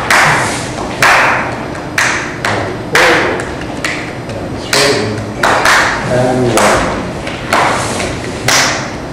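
A percussion beat keeping time for a dance exercise, with one sharp stroke about every second. Each stroke rings briefly.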